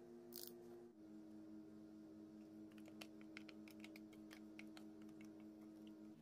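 Faint kitchen sounds: a short hiss as the honey mustard squeeze bottle spurts, then a run of soft clicks as plain yogurt is scraped from its cup into a glass bowl, over a low steady hum.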